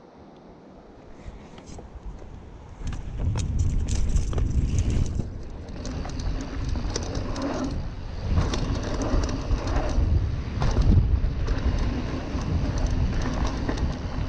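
Specialized Stumpjumper Comp mountain bike riding down a dirt trail: quiet at first, then from about three seconds in a loud rolling rumble of tyres over the dirt, with frequent clattering knocks from the chain and frame over bumps.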